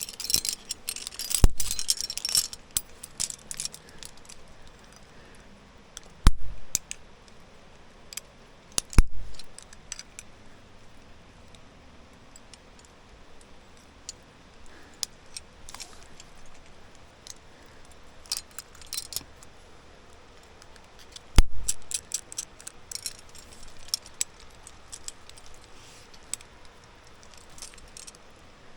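Metal climbing gear clinking and jangling as it is handled, with four heavy knocks scattered through.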